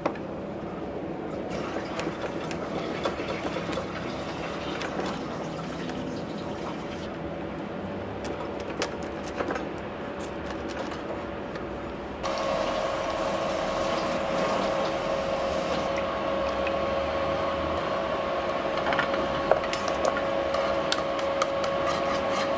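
Small clicks and taps of shellfish, shrimp and utensils being handled on a wooden cutting board, over a steady hum. About halfway through the sound changes abruptly to a louder steady hum with a few faint clicks.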